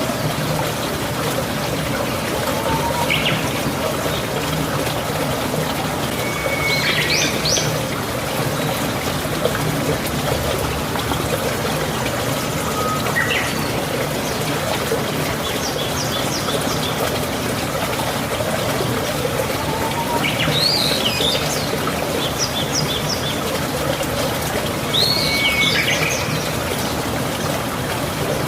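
Steady trickle of running water, like a stream, with songbirds calling now and then over it: short chirps and quick rising-and-falling phrases every few seconds.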